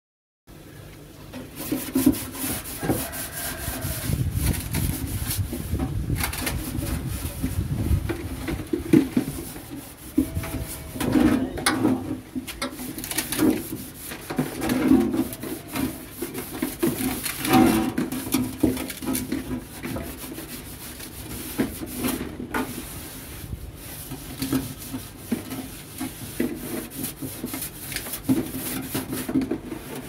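A large plastic tub, the goats' water trough, being scrubbed by hand with detergent: irregular rubbing and scraping strokes against the plastic, starting about half a second in.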